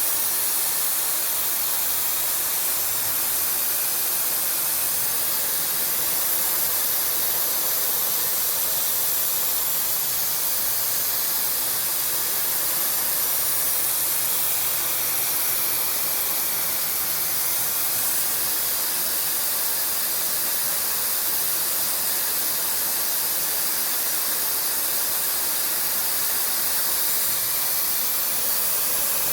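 CNC machine running while machining a Ford 6.4L diesel piston, a steady, even hiss throughout.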